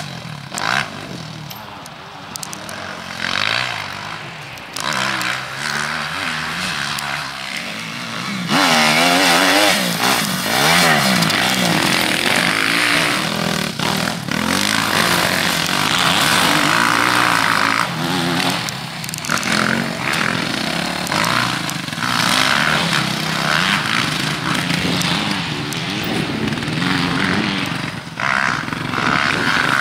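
Motocross dirt bike engine being ridden, its pitch rising and falling repeatedly as the throttle opens and closes and the gears change. It gets louder about eight seconds in.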